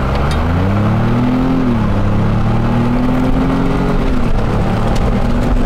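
Ford Bronco's engine accelerating hard from a launch on gravel: the pitch climbs, drops sharply at an upshift about two seconds in, climbs again and drops at a second shift about four seconds in, then holds steady.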